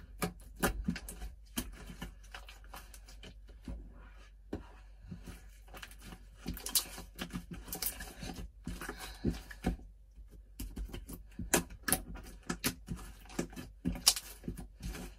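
Homemade white glue and borax slime being kneaded and squeezed by hand as water is worked into it, giving irregular wet clicks and pops with a couple of brief pauses.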